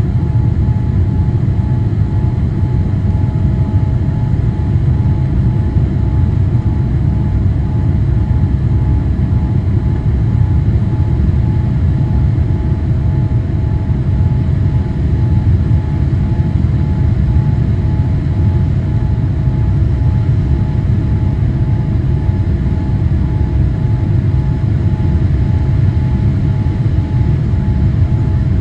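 Steady cabin noise of a Boeing 787-8 climbing out just after takeoff: a loud, deep rumble of its engines and airflow at climb power. Two faint steady hums sit above it, one of them pulsing.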